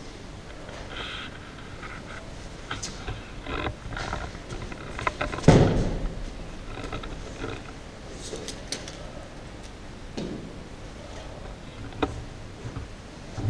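A person thrown down onto padded tatami mats during an aikido technique, landing with one loud thump about five and a half seconds in. Softer scuffs and rustles of feet and cloth on the mats come before and after.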